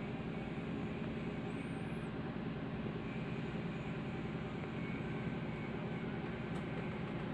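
Steady low drone of the cargo ship's running machinery, heard inside the wheelhouse.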